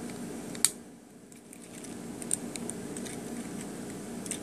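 Sharp little plastic clicks and taps from an Optimus Prime Transformers figure's parts being turned and snapped into place during its transformation to vehicle mode, the clearest a little over half a second in, over a steady low background hum.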